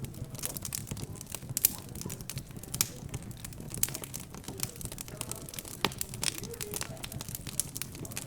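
Fireplace fire crackling, with frequent irregular pops and snaps, over a low murmur of background chatter.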